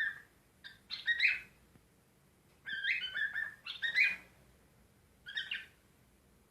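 Cockatiel chirping in short bursts of quick, repeated notes, four bursts with brief pauses between.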